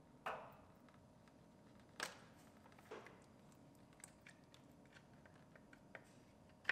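Near silence broken by about five faint clicks and knocks, a second or so apart, as the 2009 Ford Focus's plastic power steering reservoir is worked loose from its bracket by hand.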